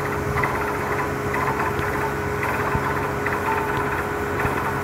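Water bore drilling rig running steadily, a constant machine drone with a thin steady whine held at one pitch.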